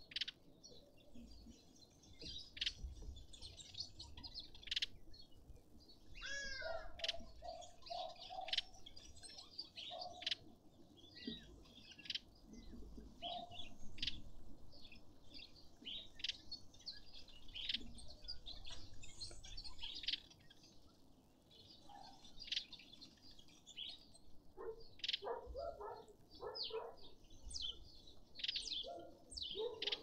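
Garden birds calling, with many short, high chirps and whistles scattered throughout. A few lower, pulsed calls come in twice, partway through and again near the end.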